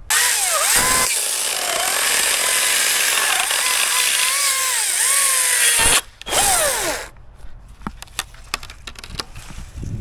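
Two-stroke chainsaw cutting wood at full throttle, its pitch dipping and recovering under load. It cuts out briefly about six seconds in, runs for about another second, then drops away, leaving a scatter of light snaps and knocks.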